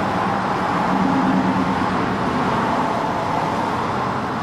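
Steady rushing background noise, with a brief low hum about a second in.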